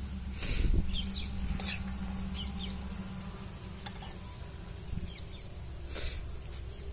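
Steel ladle scooping fried egg yolk out of an iron kadai, with a few short scraping strokes against the pan, over a steady low hum. Faint bird chirps can be heard in the background.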